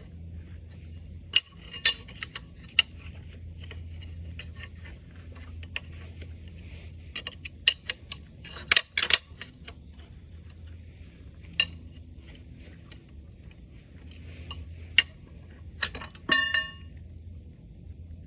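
Steel tools clinking, tapping and scraping on engine parts as a retaining ring is pried and worked back and forth off a Wisconsin V4 engine's camshaft: scattered sharp clinks, a quick cluster about halfway through, and one ringing metal clang near the end. A steady low hum runs underneath.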